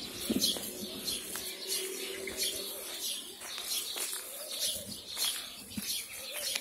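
Small birds chirping over and over in the trees, with a dove's low cooing.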